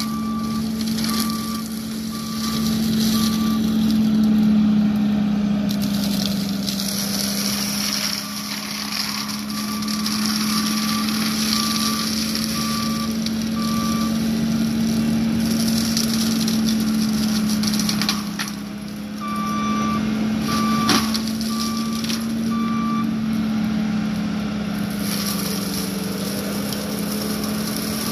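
John Deere 333G compact track loader with an MH60C forestry mulching head running steadily at high engine speed while the mulcher chews into brush, with scattered cracks of wood and one sharp crack late on. Its backup alarm beeps in three spells: near the start, in the middle and about two-thirds of the way through.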